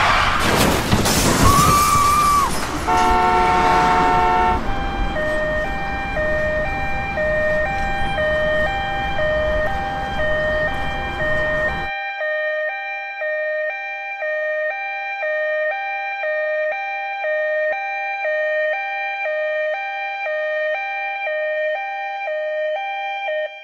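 A loud noisy crash sound for the first few seconds. Then a two-tone hi-lo ambulance siren switches steadily between a high and a low note, about two changes a second.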